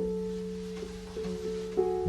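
Background music: a melody on plucked guitar over held bass notes, in a jazzy style.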